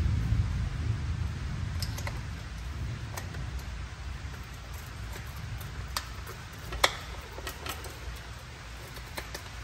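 Scattered sharp metallic clicks and taps of a hand wrench being fitted and turned on a fitting of a Ford 7600 tractor's hydraulic lift cover, the loudest a bit past the middle. Under them runs a low rumble that is louder at first and eases off.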